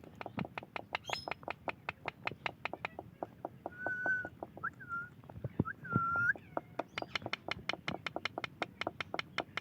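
Parrot making rapid sharp clicks, about five or six a second with short pauses, broken by a few brief steady whistles about four and six seconds in.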